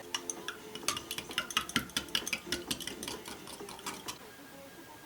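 A utensil clinking against a dish, as in stirring or mixing: a rapid run of light clicks for about four seconds, then thinning out and quieter.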